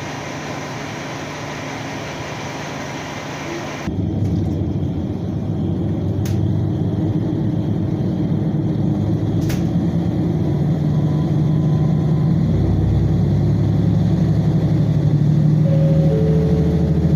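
Diesel railcar heard from inside the cabin: a steady running noise, then, after an abrupt change about four seconds in, a louder engine drone as the train rolls slowly along a platform. Two sharp clicks come a few seconds apart.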